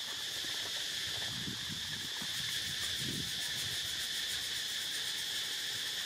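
Steady high-pitched chorus of insects droning without a break, with a few soft low rustles.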